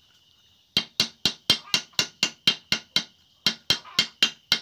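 A small hammer taps perforated honeycomb sheet metal flat against the head of a wood-splitting axe used as an anvil. The quick metal-on-metal strikes ring and come about four a second, starting just under a second in, with a brief pause a little after three seconds.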